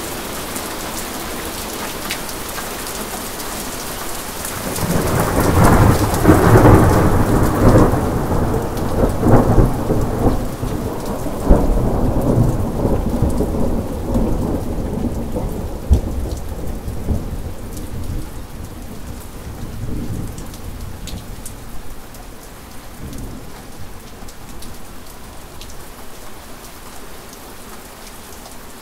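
Steady rain with a long roll of thunder. The thunder builds about four seconds in, rumbles loudest for several seconds with a few sharper cracks, then slowly fades away under the rain.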